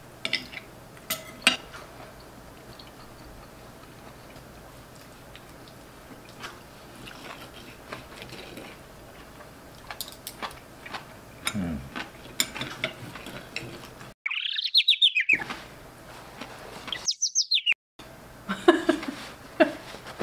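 Knife and fork clicking and scraping on plates as steak is cut and eaten. About two-thirds of the way through come two short high chirps about three seconds apart, the first arching and the second rising, with the room sound dropping out completely around each, like an edited-in sound effect.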